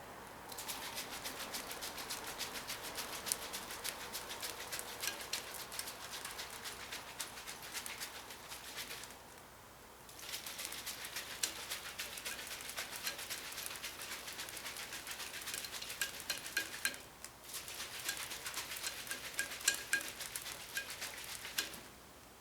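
Home-made carbonated water fizzing: a dense crackle of tiny bursting bubbles, stopping and starting twice.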